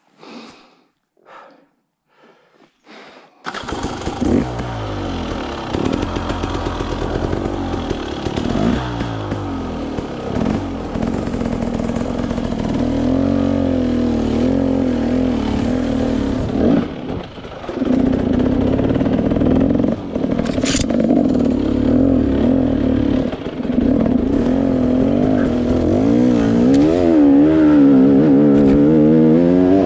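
Enduro dirt bike engine: a few short bursts, then about three and a half seconds in it runs continuously, revving up and down as the bike climbs through the woods. There are a couple of sharp clicks, one about twenty seconds in and one near the end.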